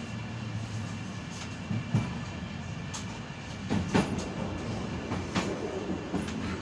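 Intercity passenger train running along the track, heard from inside its last car: a steady rolling rumble with the wheels clacking over the rails, sharp knocks about two seconds in, around four seconds in and again near five and a half seconds.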